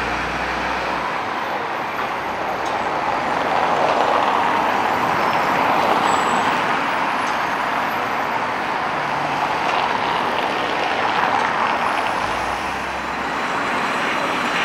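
Steady city street noise of road traffic and trams, swelling and easing as vehicles pass.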